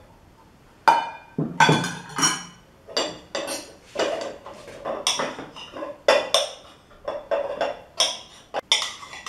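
Metal spoon clinking and scraping against a glass bowl as it cuts boiled lamb's brain into small pieces: irregular clinks, two or three a second, starting about a second in.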